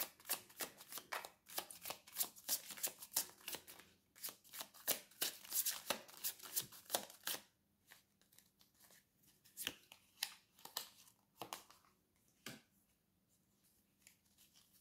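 Tarot deck shuffled by hand: a quick run of faint card clicks lasting about seven seconds, then a few scattered card taps as a card is drawn and laid down.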